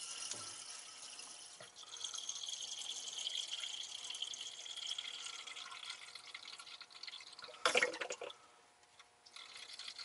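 Distilled water trickling from a squeeze bottle into the fill hole of a low lead-acid battery cell, a thin steady pour. Near the end there is a short noisy burst, followed by a brief near-quiet gap.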